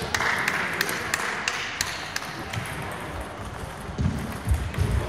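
Table tennis ball clicking off bats and table at about three hits a second in a hall, with a few low thuds near the end.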